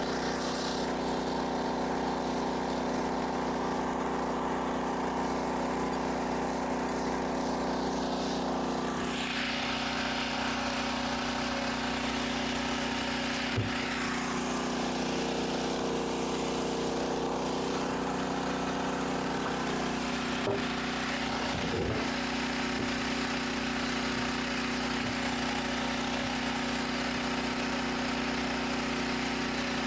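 A motor running steadily at constant speed, a continuous even hum, with a few light knocks about halfway through.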